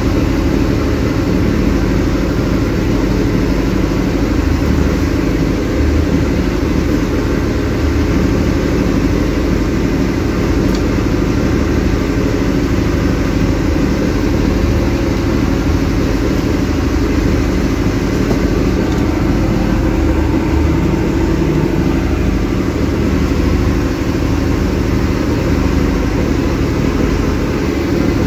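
Fishing boat's engine running steadily underway, a constant low drone, with a hiss of water and wind along the hull.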